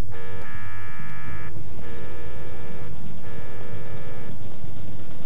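Electronic alarm buzzer sounding in three blasts of about a second each with short gaps, then stopping about four seconds in, over a steady low rumble.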